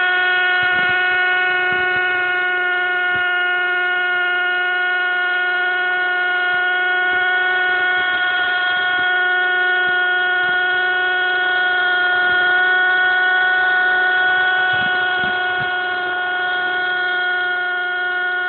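Zoom 450 IC nitro RC helicopter in flight, its small two-stroke glow engine and rotors running at a steady high pitch with a buzzing whine. It gets slightly quieter in the last few seconds.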